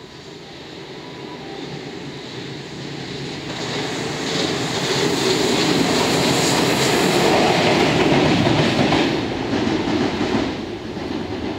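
JR Freight EF510 electric locomotive running light past on the rails, the rolling noise building as it approaches, loudest in the middle as it passes, then easing off as it goes away.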